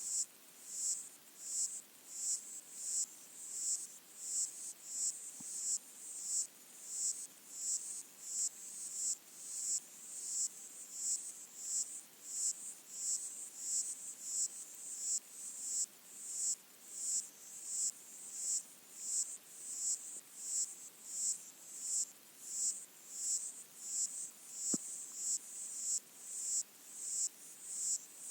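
Underwater chorus of lesser water boatmen (Micronecta) stridulating, picked up by hydrophones: high, buzzy pulses repeating about twice a second.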